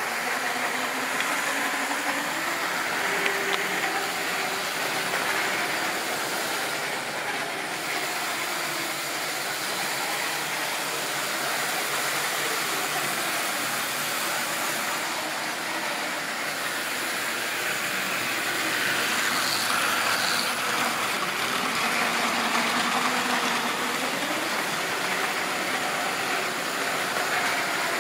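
Model train running on sectional track: a steady rumble of wheels on the rails, with the electric motor's whine rising and falling slightly in pitch as the speed changes.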